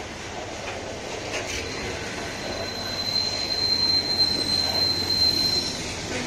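Freight train of hopper wagons rolling past at close range, wheels running over the rails. A high, steady squeal from the wagons' wheels starts about two seconds in and stops shortly before the end.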